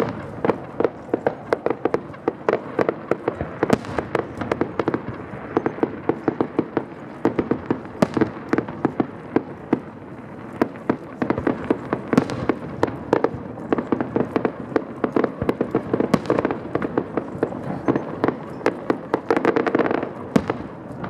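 Fireworks going off in a rapid, continuous crackle of many small bangs and pops, several every second, thickening into a denser flurry near the end.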